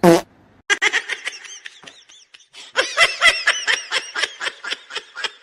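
High-pitched laughter in quick repeated bursts, in two runs with a short break about two seconds in, after a brief loud falling cry at the very start.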